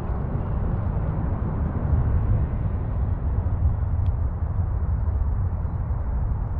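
Wind buffeting the microphone: a loud, uneven low rumble that rises and falls, with a faint tick about four seconds in.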